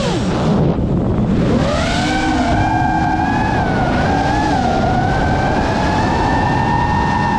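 GEPRC Mark 5 five-inch FPV quadcopter's brushless motors and propellers whining. The pitch drops sharply at the start as the throttle is cut, then climbs back up about a second and a half in and holds a steady whine with small wobbles, over a rushing air noise.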